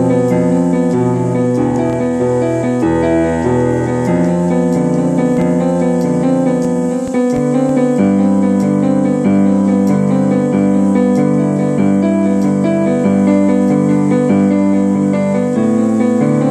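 Keyboard music, likely piano or electric piano: held chords that change every second or so over a shifting bass line.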